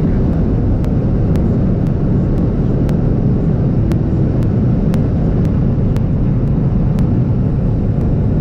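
Chase car driving fast down the runway: a steady, loud rumble of engine, tyres and wind noise.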